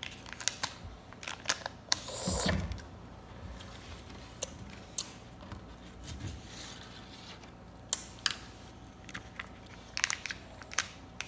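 Small plastic clicks and taps from a Kinder Joy's plastic chocolate cup and its little spoon being handled, with a brief rustle of the foil wrapping about two seconds in.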